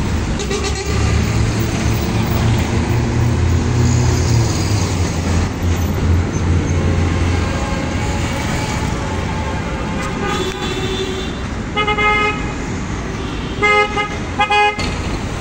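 Busy city road traffic: a vehicle engine runs past in the first half, then car horns toot in short blasts, a few times near the end.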